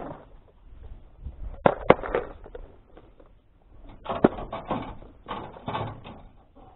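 Clear plastic tackle box handled on the lap, giving a string of sharp plastic clicks and knocks as it is turned and its latches are worked, with rustling between.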